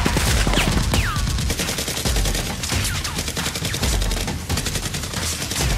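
Rapid automatic gunfire sound effects: dense, continuous volleys of shots, with two short falling whines about a second in.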